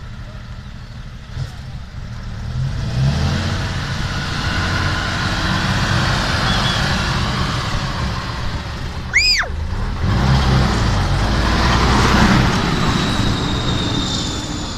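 Off-road trial truck's diesel engine working hard as the truck climbs and drives close past, growing louder over the first few seconds. A brief high squeal comes about nine seconds in.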